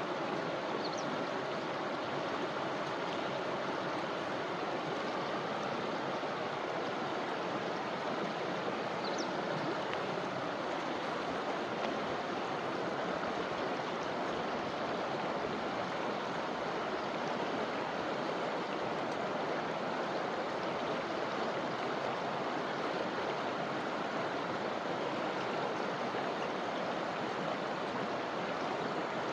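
River water flowing steadily, a constant even rushing and splashing with no change over the stretch.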